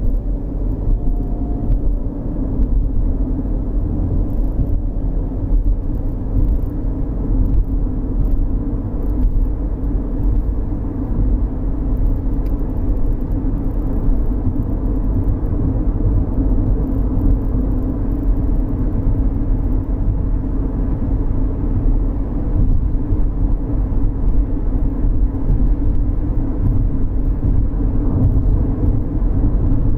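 Steady rumble of engine and road noise heard inside a 2013 Chevrolet Equinox with the 2.4-litre four-cylinder, driving at an even pace.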